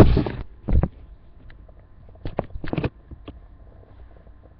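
A loud rush of noise right at the start, then a handful of light clicks and taps of small objects being handled close to the microphone.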